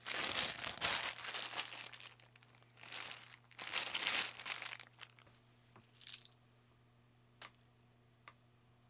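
Packaging crinkling and rustling as it is handled or unwrapped, in several bursts over about the first five seconds, followed by a few light separate clicks.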